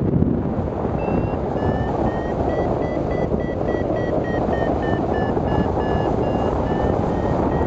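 Wind rushing over the microphone of a hang glider in flight. From about a second in, an electronic variometer beeps in a quick run of short tones whose pitch rises slightly, dips and rises again: the vario's climb tone, signalling that the glider is going up in lift.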